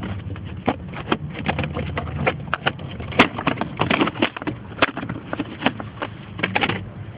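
Irregular clicks, taps and light knocks of hands working on the plastic steering-column trim and parts under the dashboard, over a steady low hum.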